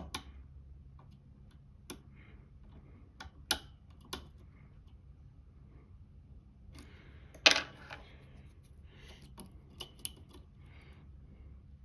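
Lock pick and tension wrench clicking irregularly against the pins of a Lucznik pin-tumbler lock during picking, with one sharper click about two-thirds of the way through.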